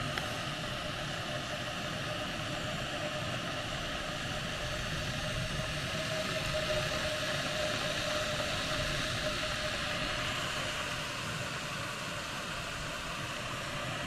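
Two canister gas stoves, a Jetboil Zip and a Kombat Cyclone, burning side by side under pots of water: a steady, even burner hiss, with a faint thin whine coming in about five seconds in and fading by about ten.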